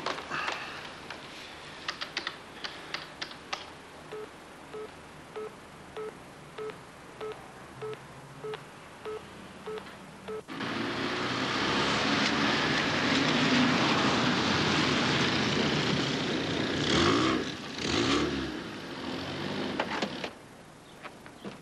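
Telephone handset and button clicks, then a short beep repeating on the line about every 0.6 seconds. About halfway a loud, steady rushing noise cuts in suddenly, swells a little, and stops shortly before the end.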